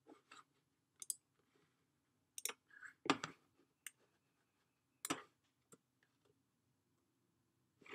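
Irregular clicking of a computer mouse and keyboard in use, about seven separate clicks, with a duller knock about three seconds in.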